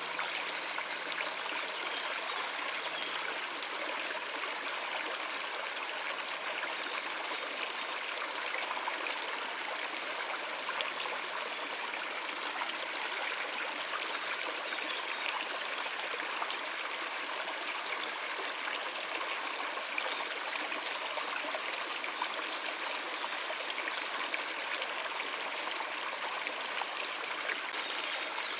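Stream water running over rocks, a steady, even rush and babble.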